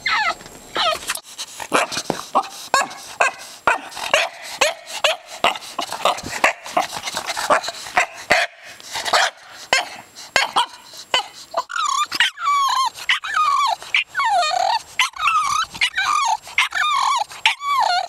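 A dog making a fast string of short yips and barks, then, from about twelve seconds in, longer whining calls that waver and fall in pitch.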